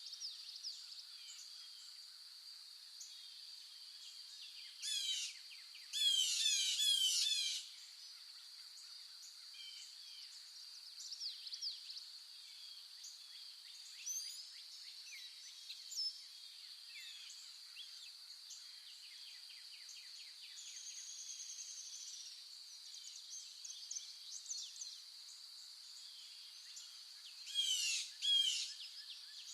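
Birds singing in bursts of quick, repeated, falling chirps, the loudest burst lasting about a second and a half, over a steady high-pitched drone.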